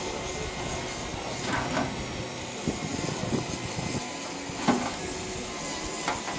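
Steady engine-shed background noise with a few light knocks, the loudest about four and a half seconds in, as a fitter handles the sheet-metal cladding over a steam locomotive's steam pipe.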